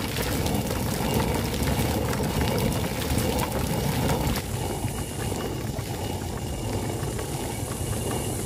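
Hand-turned stone mill grinding dried corn: the upper millstone, pushed round by a wooden pole crank, rumbles steadily against the lower stone.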